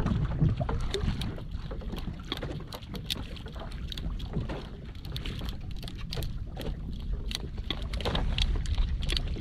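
Wind on the microphone and water moving around a small wooden fishing boat, with a steady low rumble and many scattered light clicks and knocks.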